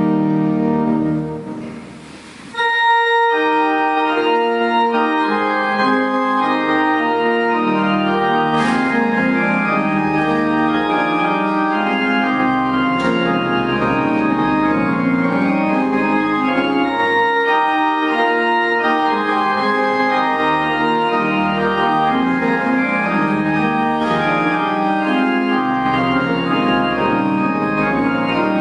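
Church organ playing sustained chords. The music fades to a brief lull about two seconds in, then the organ comes back in with full chords and plays on.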